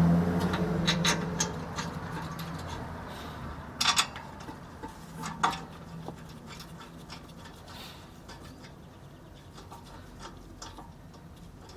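Scattered metal clinks and knocks as brake parts and tools are handled during caliper refitting. The loudest come about four and five and a half seconds in. A steady low hum fades out within the first couple of seconds.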